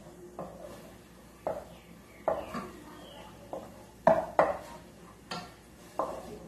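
Wooden spoon scraping and knocking against a stainless steel saucepan, stirring chopped tomatoes, peppers and onion as they sauté in olive oil. The strokes come irregularly, with the two loudest knocks close together a little past the middle.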